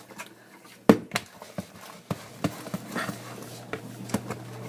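A spoon knocking and scraping against its container as slime is mixed: irregular sharp clicks and knocks, the loudest about a second in.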